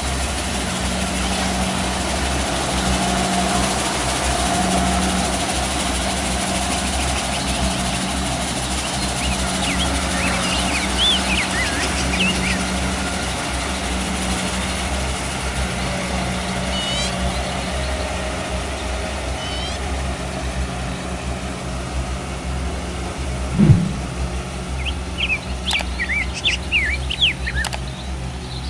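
Diesel engine of a Kubota DC-70 Plus combine harvester running steadily in a rice paddy, a continuous low drone. Birds chirp over it twice: about ten seconds in and again near the end. A single short thump comes about 24 seconds in.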